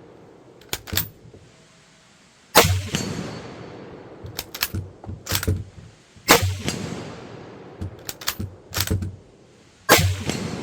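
Three rifle shots from an Argentine Mauser bolt-action rifle chambered in 7.62 NATO, roughly three and a half seconds apart, each echoing as it fades. Between the shots come quick metallic clicks and clacks of the bolt being worked to chamber the next round.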